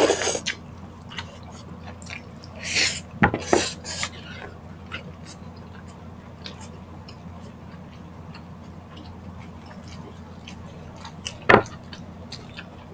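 Table noises of a meal eaten by hand: small clicks and knocks of a drinking glass and bamboo skewers on a wooden table. Two sharper knocks stand out, one about three seconds in and one near the end.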